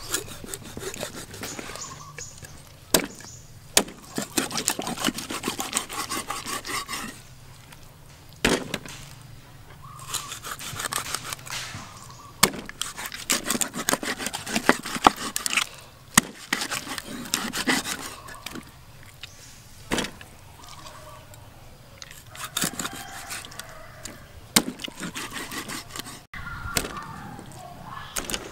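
Steel cleaver chopping a large fish into steaks on a wooden chopping board. Single sharp chops come a few seconds apart, between stretches of quick scraping and cutting strokes as the blade works through scales, flesh and bone.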